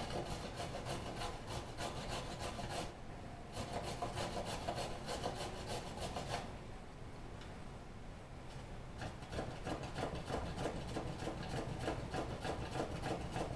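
A vegetable being rubbed quickly back and forth over a hand grater: rapid, even scraping strokes, with brief lulls about three seconds in and again around seven seconds.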